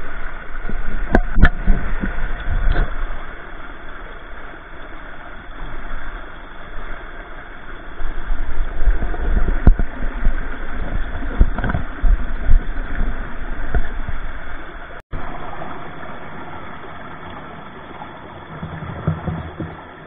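Water of a shallow rocky stream flowing, with an uneven low rumble and a few sharp knocks in the first part. The sound cuts out briefly about fifteen seconds in, then the flow continues steadier and slowly fades.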